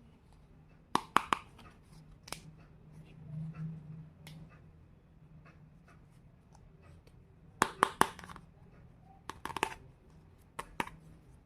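Small miniature toy kitchen pieces clicking and tapping as they are handled, in several quick clusters of sharp clicks, with a faint low hum a few seconds in.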